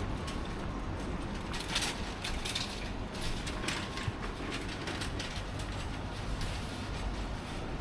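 City street ambience: a steady low traffic rumble with irregular clicks and rattles scattered through it.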